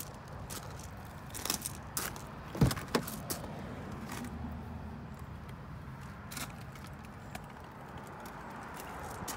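BMW 330e front door being opened: a run of light clicks and handling knocks, then a sharp latch clack about two and a half seconds in with a second click just after, over a steady low background hum.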